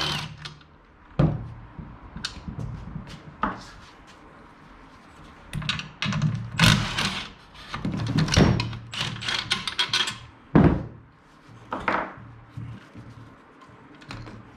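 Hand tools clicking and metal seat parts knocking while car-seat bolts are being undone, with runs of quick clicks in the middle and a single heavy thump late on.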